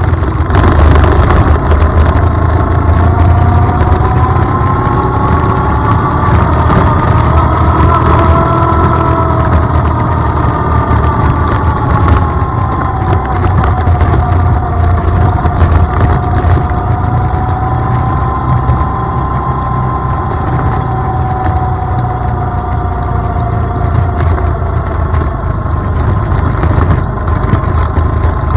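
ATV engine running as the quad is ridden along a sandy dirt trail, over a heavy low rumble. The engine note climbs over the first several seconds, eases off after about eight seconds and then holds fairly steady.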